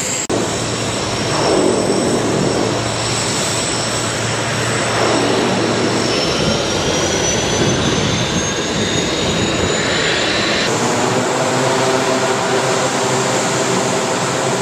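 C-130H Hercules' Allison T56 turboprop engines running on the ground, eight-bladed propellers turning: a steady, loud propeller drone with a high turbine whine that rises slowly in pitch through the middle. The sound changes abruptly about ten and a half seconds in.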